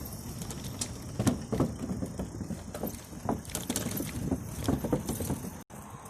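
Bicycle riding over a rough forest trail: a steady low rumble from the tyres with irregular knocks and rattles as it jolts over bumps.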